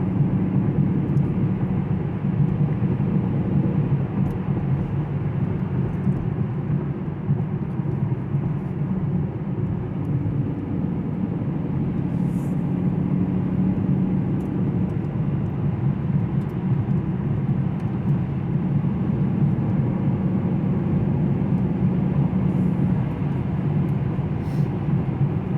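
2018 Chevrolet Camaro SS's 6.2-litre V8 running at a steady cruise, with tyre and road noise, heard from inside the cabin.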